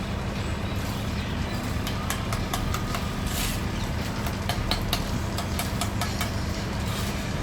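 An engine running steadily at idle, with scattered sharp clicks and knocks over it.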